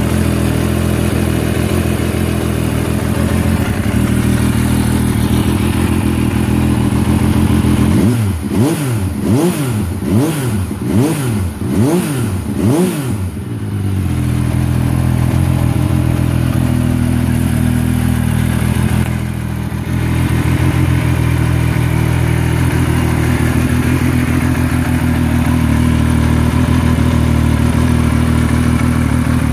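Benelli Tornado Tre 900's three-cylinder engine idling steadily, then revved in about six quick throttle blips, each rising and falling, before settling back to idle.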